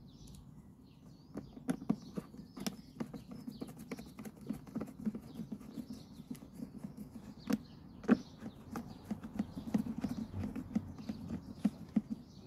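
Hand screwdriver driving screws into a Flymo hover mower's plastic top case: a long run of irregular small clicks and creaks as the screw turns, with a couple of louder knocks about halfway through.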